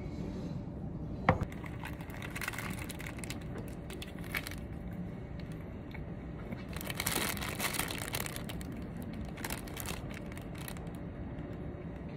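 Irregular crinkling and rustling handling noises, with a single sharp click about a second in.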